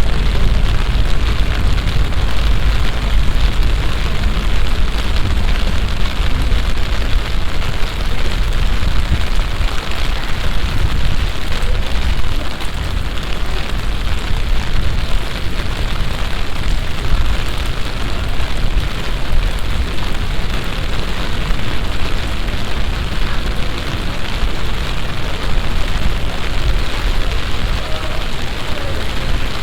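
Heavy summer downpour: rain falling hard as a loud, steady hiss with a deep rumble underneath.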